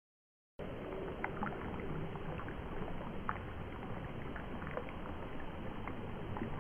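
Steady, low watery rumble with scattered small bubbling pops, starting about half a second in.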